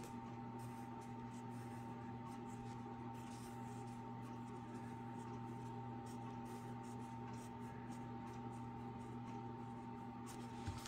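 Pencil scratching on paper in short, irregular strokes while block letters are written, over a steady low electrical hum.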